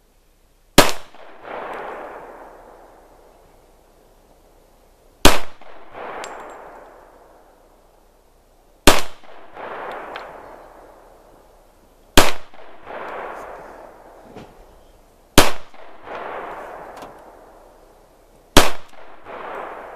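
Six pistol shots from a .45 M1911 fitted with a muzzle brake, fired slowly, one every three to four and a half seconds. Each sharp report is followed by a long echo that rolls back and fades over a couple of seconds.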